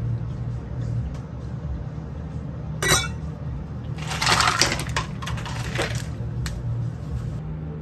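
Small hard objects clinking and clattering: a single sharp clink about three seconds in, then a run of rattling clicks for about two seconds and one last click, over a steady low hum.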